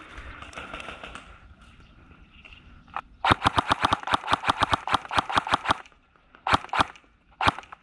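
Kingarms PDW airsoft electric gun firing: after a single shot, a rapid string of about twenty shots at roughly eight a second, then three single shots near the end.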